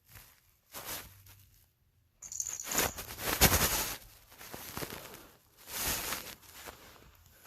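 Something small rattling and clattering in irregular bursts, with one sharp knock about halfway through.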